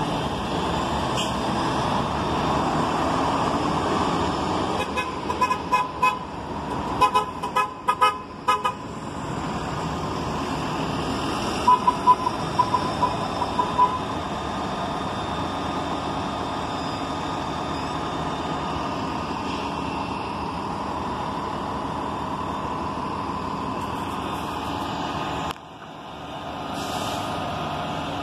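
City transit buses running and moving along the street. Clusters of short, high toots come about five to nine seconds in and again around twelve seconds in. Near the end the sound briefly drops out.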